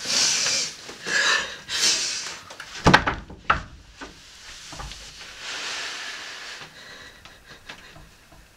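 A woman's heavy, noisy breaths, with a cluster of sharp knocks about three seconds in as she slides down against a wooden door to sit on the floor.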